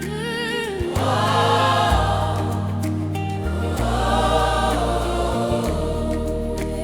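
African gospel praise music: choir voices holding long notes without words, over a bass line that steps to a new note every second or two.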